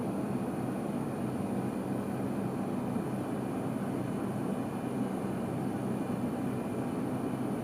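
Steady low background rumble with a faint high hum, unchanging throughout; room tone with no distinct events.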